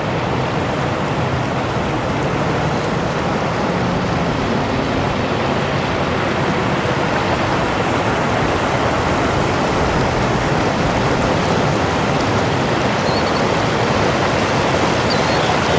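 River water rushing steadily: a loud, even hiss of flowing water.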